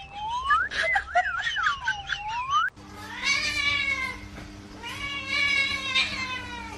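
A warbling whistle swooping up and down, then a cat yowling twice in long, drawn-out calls.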